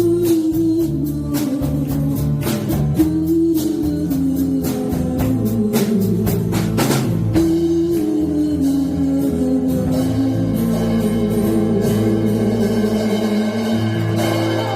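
Band with drums, bass, guitar and keyboard playing an instrumental passage of the song, with no singing: a melody line moves over bass notes and drums. In the last few seconds the band settles onto steadier held notes.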